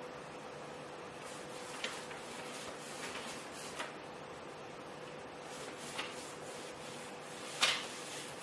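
Soft clicks and paper rustling as the build plate of a FlashForge Creator Pro 3D printer is levelled by hand: a sheet of paper is slid under the nozzle and the thumbscrews under the plate are turned. There are four brief clicks, the sharpest near the end, over a faint steady hum.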